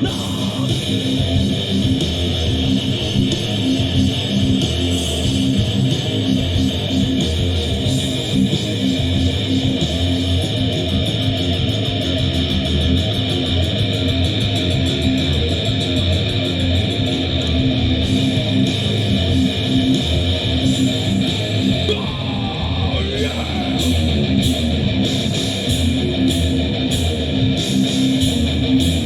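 Live rock band playing an instrumental passage, with electric guitar strumming over bass and drums.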